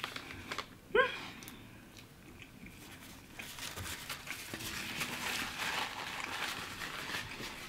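A person chewing a mouthful of fish sandwich (soft bun and breaded fish patty), with a brief vocal "mm" about a second in. The chewing noise gets louder through the second half.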